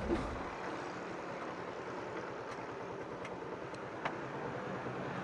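Steady road and vehicle noise from a motorcycle ride, heard through an external mic fitted with a furry dead-cat windscreen. A low wind rumble on the mic drops away about half a second in, and a few faint ticks follow.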